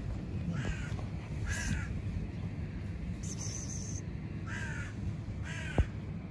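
A crow cawing: two pairs of short, harsh caws, the calls in each pair about a second apart. A sharp click sounds near the end.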